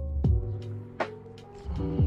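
Background music with a beat: drum hits over sustained chords.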